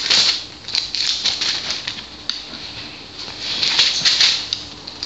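Bible pages being leafed through to find a passage, several runs of quick papery flicks and rustles.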